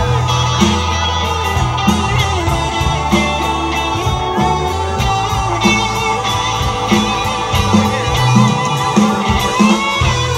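Live rock band playing an instrumental passage on electric bass, electric guitar, keyboards and drum kit, with regular cymbal strokes over a steady bass line.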